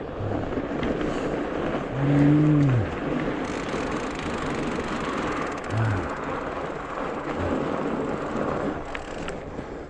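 Fatbike rolling along a snow trail: a steady rush of tyre and wind noise, with a short, low, voice-like grunt about two seconds in.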